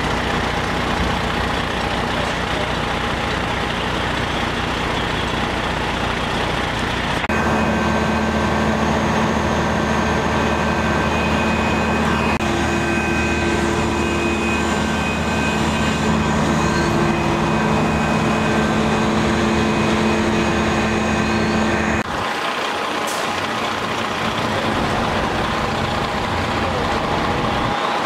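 Fire truck engine running steadily, a continuous drone with a steady whine above it. The sound changes abruptly about seven seconds in and again near the end.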